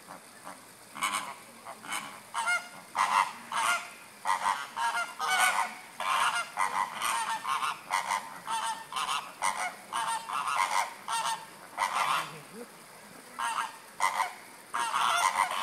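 A flock of flamingos calling: many short honks overlapping in a near-constant chorus, with a short lull about three-quarters of the way through.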